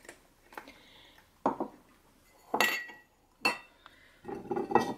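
Small drinking glasses and dishes being handled and set down on a table: several separate clinks and knocks, one about halfway through ringing briefly, with a quick run of knocks near the end.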